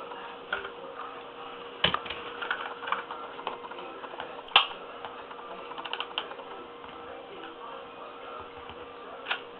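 Irregular light clicks and taps from a hot glue gun and carpet being handled while a patch's edges are glued down, the sharpest about two and about four and a half seconds in. A faint steady hum runs underneath.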